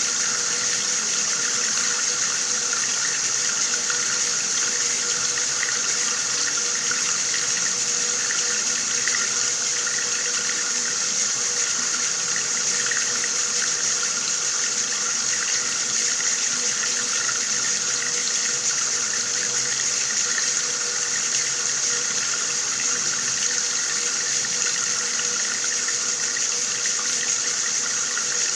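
Water running steadily from a tap, an unbroken hissing stream.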